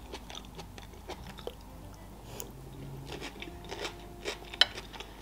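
Close-miked chewing of food, with scattered wet mouth clicks and one louder click near the end.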